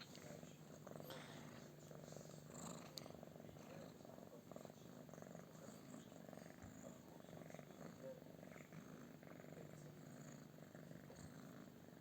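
Domestic cat purring steadily and faintly.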